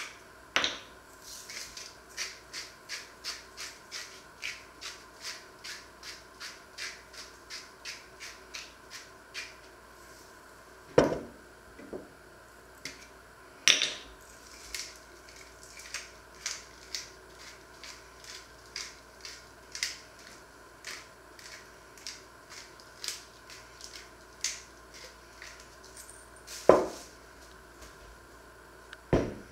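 Food being prepared at a wooden counter: a long run of light ticks, about three a second, and a few louder knocks of jars and utensils set down on the wood.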